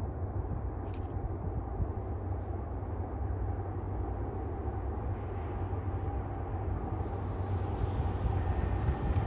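Distant freight train diesel locomotives approaching, a GE AC6000-carbody unit leading an EMD SD70AH: a low steady rumble with a faint steady hum, slowly growing louder.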